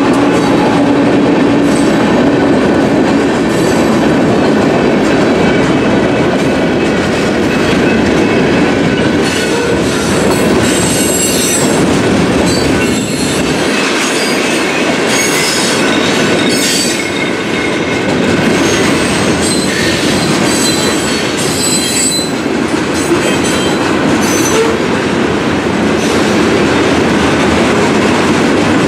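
Freight cars rolling through a grade crossing: a steady rumble and clatter of wheels over the rail joints, with high-pitched wheel squeal coming and going through the middle stretch. The last of a locomotive horn note dies away in the first few seconds.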